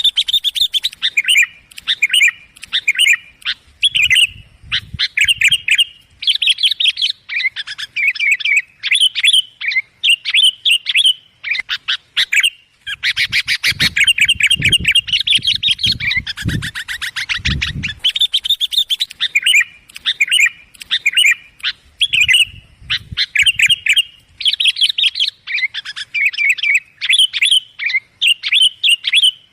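Sooty-headed bulbuls (kutilang) calling, a loud, clear lure-call recording of rapid bright chirps and chattering trills, almost without pause. A low rumble runs underneath for a few seconds around the middle.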